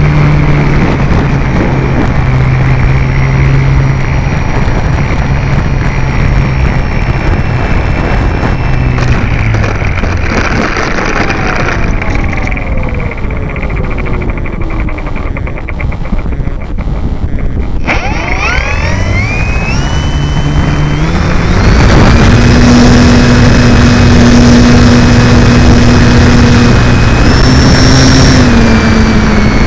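Electric motor and propeller of a Multiplex FunCub RC plane heard from on board, running steadily, then throttled down about nine seconds in as the plane comes in to land. About eighteen seconds in the motor spins up with a rising whine and settles at a louder, higher steady pitch for takeoff and climb. Wind and rumble run under it.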